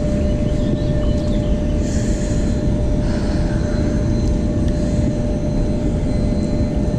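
Steady low rushing noise of flowing river water and wind on the microphone, with a faint constant whine.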